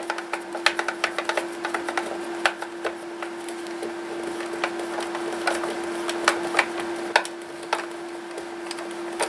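Hand screwdriver driving screws into the plastic back case of an Aiwa boombox: irregular small clicks and ticks as the screws turn, over a steady hum.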